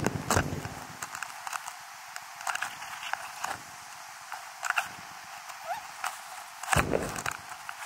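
Steady rush of flowing river water, with scattered light knocks and clicks.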